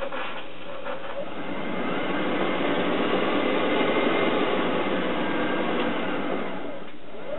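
Homemade electric motorcycle's motor spinning up under throttle: a whir that rises in pitch and builds over the first couple of seconds, holds, then winds down about seven seconds in.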